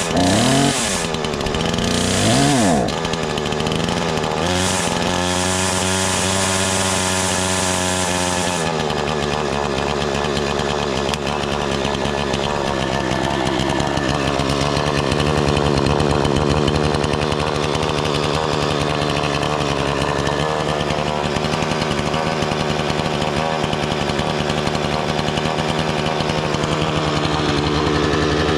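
Bilt Hard TNA-0006 58cc two-stroke chainsaw engine running on its first startup, with the choke pushed in. It revs up twice briefly near the start, then runs steadily and settles to a slightly lower idle about nine seconds in.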